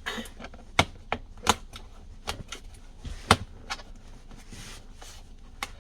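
Plastic interior trim cover of a Tesla Model Y being fitted and pressed back into place: a string of sharp, irregular clicks and snaps, the loudest a little past three seconds in.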